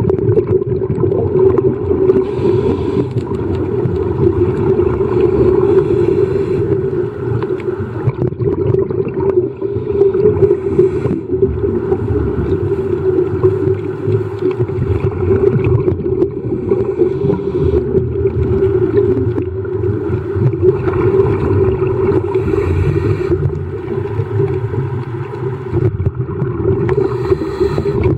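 Underwater sound of a scuba dive: a steady low drone, with a hissing rush of exhaled regulator bubbles every few seconds.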